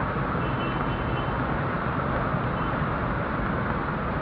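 Floodwater of a river in flash flood rushing past: a steady, dense, loud rush of turbulent muddy water.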